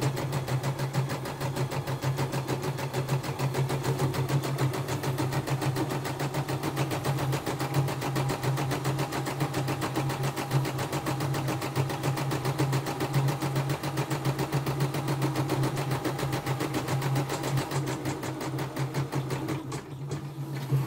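CNY E960 computerised embroidery machine stitching at steady speed: a rapid, even run of needle strokes over a constant motor hum. It is a test run after the machine was repaired for jamming.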